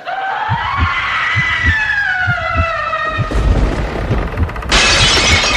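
Horror sound effects: an eerie wail that glides up and then slowly sinks away, over a quick run of low thuds. About three seconds in a rushing noise swells, and near the end it becomes a loud hiss.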